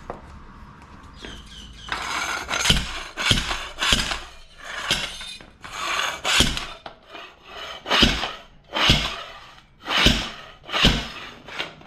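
A hand tire tool worked against a motorcycle tire's bead at the wheel rim to break it loose. There are about a dozen rubbing, scraping strokes, roughly one a second, each with a dull knock.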